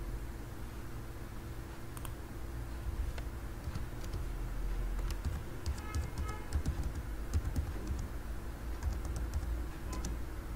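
Computer keyboard being typed on: a quick run of key clicks about five seconds in and a few more near the end, over a steady low hum.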